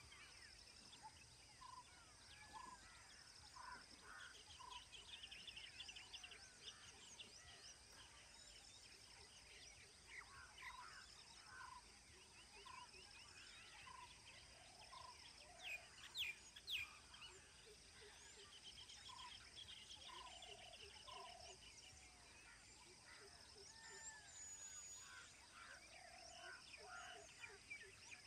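Faint chorus of wild birds calling: short whistled notes repeated every second or so, rapid high trills, and two louder sharp calls a little past halfway, over a steady high-pitched drone.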